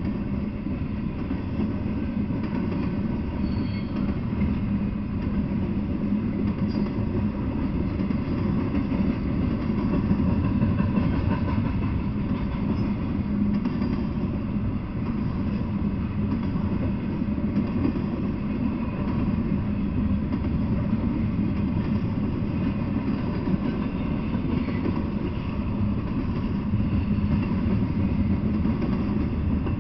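Double-stack intermodal container freight train rolling past: a steady low noise of the well cars' wheels on the rails.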